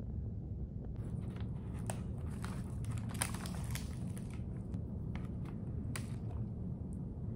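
Starbucks paper pastry bag crinkling and rustling as it is handled, in irregular crackles from about a second in, over a steady low room hum.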